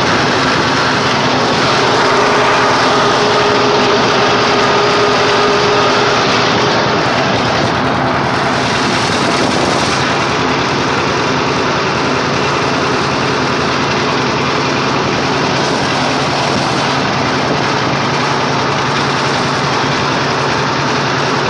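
A John Deere 730's two-cylinder gasoline engine running steadily while the tractor drives along, heard from the driver's seat. A faint higher tone comes in for a few seconds near the start.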